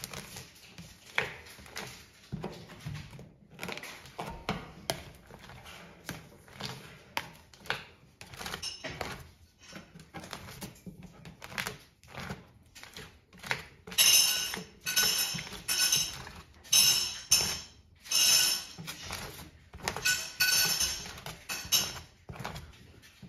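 Metal spatulas scraping and tapping on a frozen stainless steel ice cream roll plate as an ice cream sheet is spread. Past the middle comes a run of louder, sharper scrapes, about one a second, as the spatula edge cuts strips into the sheet against the plate.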